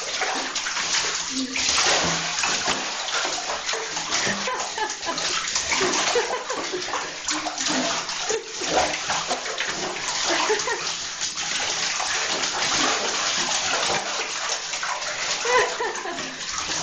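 Water in a bathtub: a steady rush of water with scattered splashes as a small dog moves about in the shallow water.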